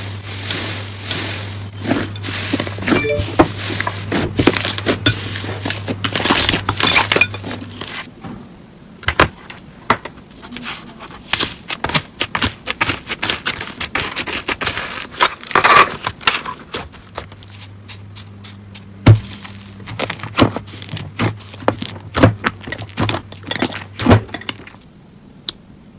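Slime being pressed, squeezed and stretched by hand, giving dense, irregular crackling and popping clicks, sometimes in quick clusters, over a faint low hum.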